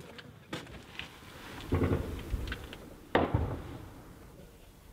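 Two distant heavy booms of combat fire about a second and a half apart; the second starts sharply and echoes away. A few faint clicks come before them.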